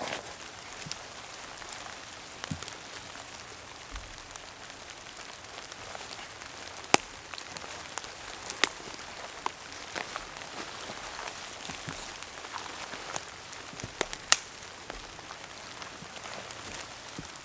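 Steady rain falling, with scattered sharp, close drops tapping loudly every second or two.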